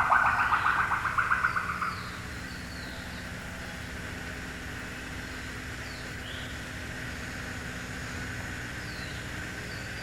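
Natural forest ambience. A loud, rapidly pulsing trill fades out about two seconds in. A quieter steady background follows, with a few faint bird chirps.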